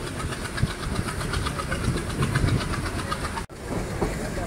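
Moving train, heard from on board: a steady rumble of wheels on rail with fast, regular clicking. The sound cuts out abruptly for a split second about three and a half seconds in.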